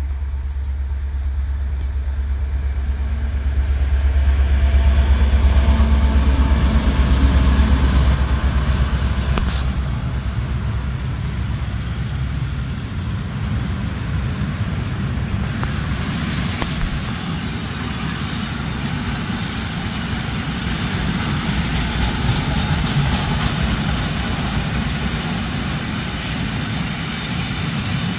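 M62M diesel locomotive passing close by, its engine drone loudest a few seconds in. A long train of ballast hopper wagons follows, rolling past with a steady rumble and wheel clatter.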